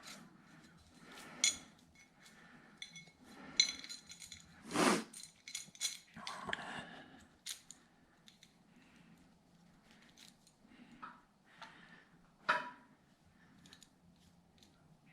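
Light metallic clinks and taps of hand tools and steel timing-gear parts being handled, a few of them briefly ringing, during a small-block Chevy 350 timing chain and gear installation.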